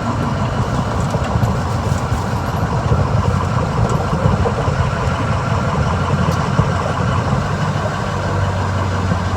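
Ford 6.0 Powerstroke V8 turbodiesel running steadily, just refilled with fresh oil after an oil change.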